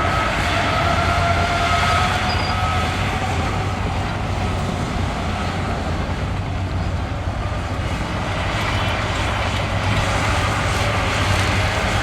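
Bulldozer diesel engine running steadily with a constant low hum, with a faint on-and-off high squeal in the first few seconds.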